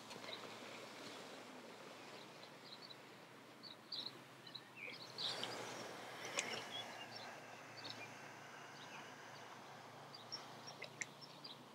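Faint outdoor background with scattered small bird chirps; the background noise rises briefly about halfway.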